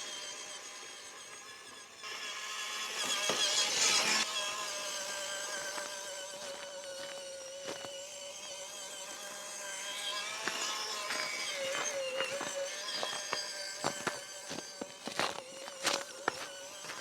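Small electric RC car driving: its motor and gearbox whine steadily, louder for a couple of seconds early on, then a string of sharp clicks and knocks near the end as it rolls over rough ground.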